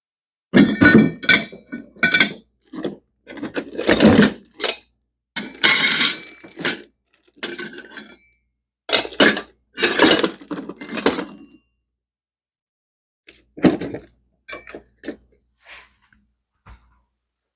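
Small metal parts clinking and clattering as they are handled and set down, in irregular bursts, some with a brief metallic ring.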